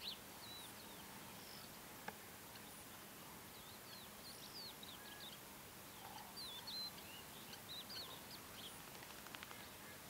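Faint, scattered chirps and twitters of small birds, busiest in the second half, over a steady background hiss.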